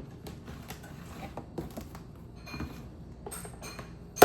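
Plastic freezer food containers being handled: a string of light clicks and taps, then one sharp knock near the end as pieces are set down or pushed apart.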